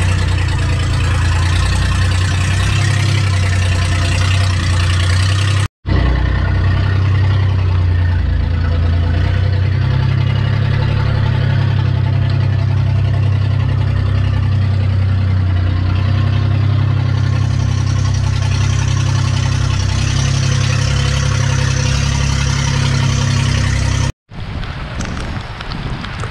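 Outrigger boat's inboard engine running steadily under way, with storm wind and spray rushing over the microphone. The sound cuts off abruptly twice, and after the second break near the end the engine is gone, leaving wind and rain.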